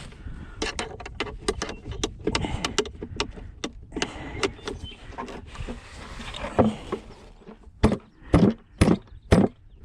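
Metal mounting hardware being worked by hand on a nesting-box pole: irregular clanks, clicks and scraping, with a run of sharp, loud knocks near the end as the piece is forced out.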